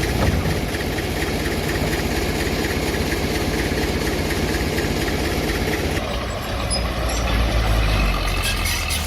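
Bulldozer's diesel engine running steadily. About six seconds in the sound changes and the low end grows stronger.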